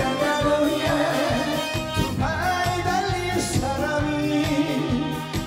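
A male singer singing a trot song live over band backing with a steady drum beat, holding long notes with a slide up in pitch about two seconds in.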